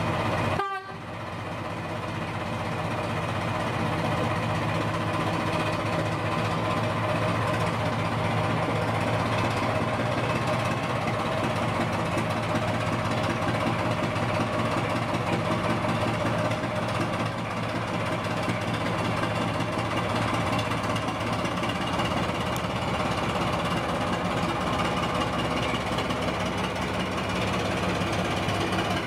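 BR Class 14 diesel-hydraulic locomotive D9526, its Paxman six-cylinder diesel engine ticking over steadily while the loco stands at the platform.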